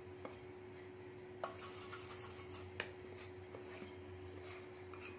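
Faint scraping and rustling as flour is tipped and scraped with a spoon out of a small stainless-steel bowl into a larger bowl of water, with a few light clicks of spoon on steel. A steady low hum runs underneath.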